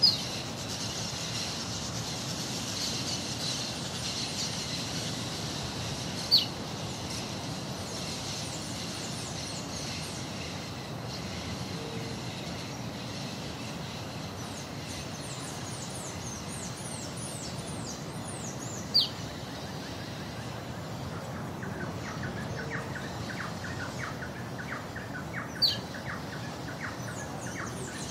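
Rural morning ambience with several kinds of birds chirping and singing over a steady background hum. A loud, short, high call cuts through four times, several seconds apart.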